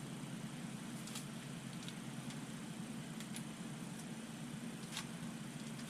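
A few faint clicks and light handling sounds of drone packaging and paperwork being gone through, over a steady low hum.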